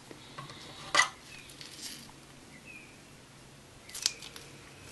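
A few light clicks and taps from handling the painting sheet and the alcohol bottle over a quiet background; the sharpest click comes about a second in, with fainter ones later.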